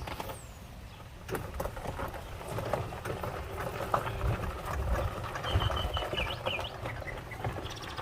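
Outdoor ambience: low rumbling and rustling with scattered clicks, and a few bird chirps between about five and a half and six and a half seconds in.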